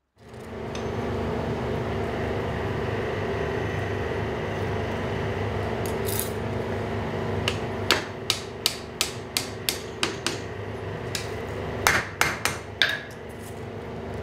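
Hand hammer striking a red-hot square steel bar on the anvil, driving it around a two-pin bending jig into a right-angle bend. About halfway in comes a run of about nine sharp strikes at roughly three a second, then a quick group of four or five more near the end, over a steady background hum.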